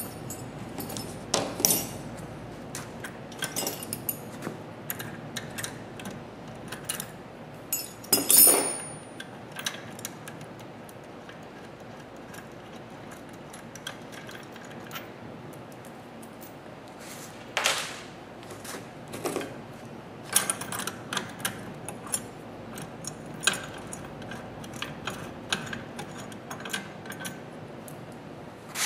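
Metal hand tools clinking and tapping against the steel parts of a power step assembly as its bolts and screws are taken out. The clicks are scattered, the loudest a little over eight seconds in, with quicker runs of small clicks in the last third.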